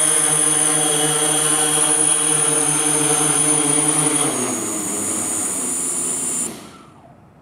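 DJI S1000+ octocopter's eight motors and propellers hovering with a steady high whine. About four seconds in the pitch falls as the craft sets down, and the sound cuts off near the end as the rotors stop.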